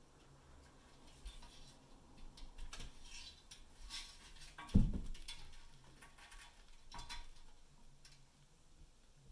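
Kittens' claws clicking and scraping on an aluminium step ladder, with one heavy thump about five seconds in as a kitten jumps down.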